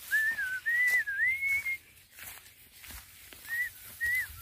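A person whistling a tune: a single clear note gliding up and down in a run of short phrases for about two seconds, then two shorter phrases near the end.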